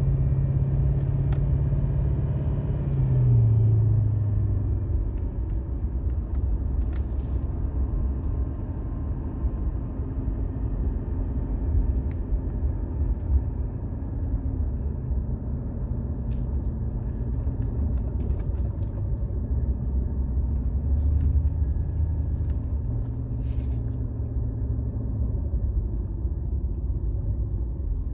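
1999 Jaguar XJ8's V8 engine and road noise while driving, a steady low rumble. The engine note drops about three seconds in.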